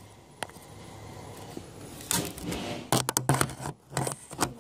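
Handling noise of objects being moved about: a single click, then a rustling scrape about two seconds in, and a quick run of clicks and knocks near the end.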